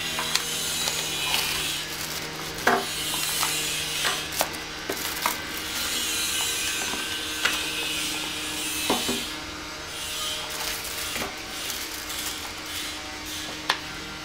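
Plastic bags and paper packaging rustling as they are handled and unpacked, with a few sharp clicks and taps as items are picked up and set down.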